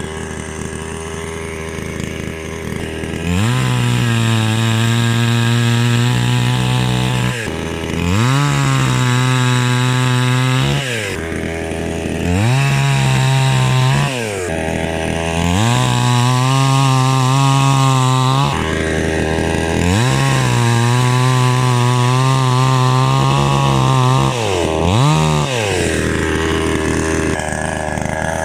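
Flinke FK 9600 two-stroke petrol chainsaw, its engine repeatedly throttled up from idle and held at high revs for a few seconds at a time, about five times, then given one short blip of the throttle near the end.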